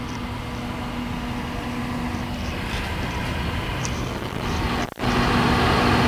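ICECO VL75ProD 12-volt compressor fridge running, a steady hum with a held low tone, drawing about 40 watts. It cuts out briefly about five seconds in and comes back louder.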